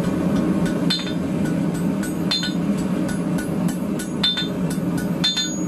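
Hand hammer striking a hot steel bar on an anvil to taper it down, roughly one blow a second at an uneven pace, each with a brief metallic ring from the anvil. A steady roar runs underneath.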